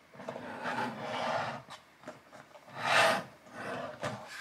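A young girl's soft, breathy vocal sounds and murmuring, with a louder breathy burst about three seconds in.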